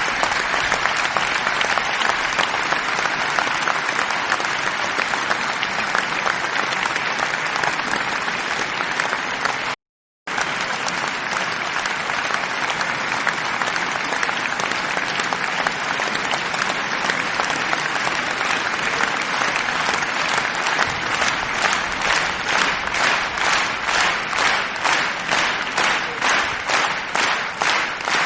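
Large concert audience applauding, a dense wash of many hands clapping. About ten seconds in it cuts out to silence for a moment and then resumes, and in the last several seconds the clapping falls into rhythmic unison, about two claps a second.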